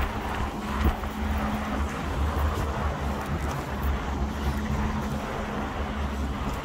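Steady low engine drone with a constant low hum, running on without a break.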